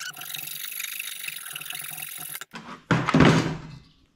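Hand saw laid flat cutting glued mahogany plugs flush with the end of a wooden frame: a steady rasp of back-and-forth strokes that stops about two and a half seconds in. A short, loud burst of noise follows about three seconds in.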